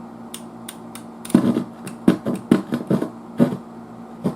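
A run of sharp, irregular knocks and clicks starting about a second in, around eight in quick succession, over a steady low hum.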